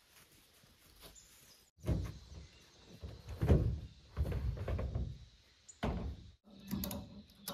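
A canoe being loaded onto a pickup truck: a run of irregular thumps and scrapes as the hull is set on and slid along the truck, starting about two seconds in.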